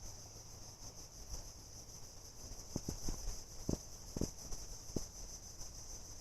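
Steady high-pitched insect buzzing, with scattered light clicks and knocks from about halfway through.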